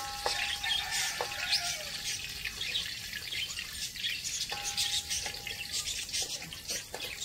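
Dried chillies crackling as they fry in hot oil in a steel wok, with a few clinks of a metal spatula against the wok that ring briefly as they are stirred.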